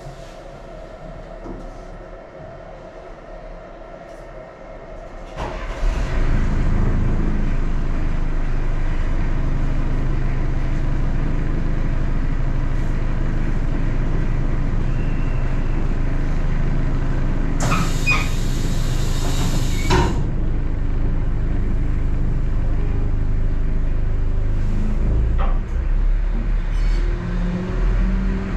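Inside a pier railway carriage: a faint steady hum, then about five seconds in a loud, steady low rumble of the train comes on suddenly and carries on. A brief loud hiss cuts in for about two seconds roughly two-thirds of the way through.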